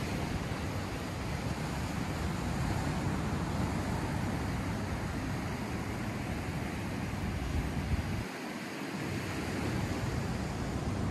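Ocean surf washing steadily onto the beach, with wind buffeting the microphone; the low wind rumble drops out briefly about eight seconds in.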